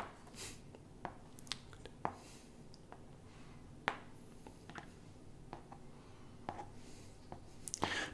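Close-miked ASMR mouth sounds: soft, scattered mouth clicks and a few faint breathy, wordless whispers.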